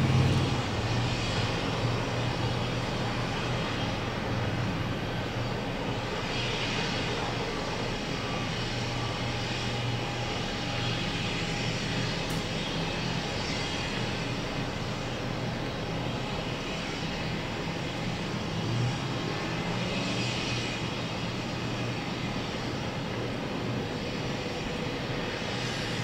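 A steady, low engine drone with a constant hum, heard over general outdoor background noise. There are no hammer strikes.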